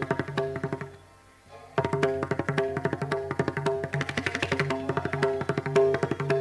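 Pakhawaj, a two-headed barrel drum, played in fast, dense strokes over a short melodic phrase repeated on the sarangi. About a second in, the sound drops almost entirely out for under a second, then cuts back in abruptly.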